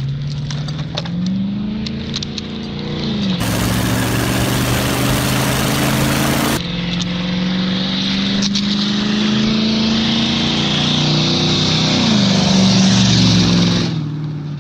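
Car engine revving up and dropping back twice as the car is driven. A loud hiss of rushing air starts about three seconds in, lasts about three seconds and cuts off suddenly.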